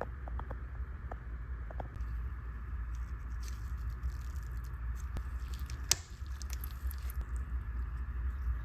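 Small, faint clicks and ticks of tweezers and tiny pocket-watch parts being handled on the bench, over a steady low hum; one sharper click comes about six seconds in.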